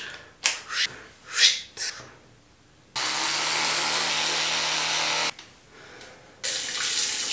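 Electric toothbrush running against the teeth with a steady buzz for a couple of seconds, then switched off. It starts again about a second later, near the end.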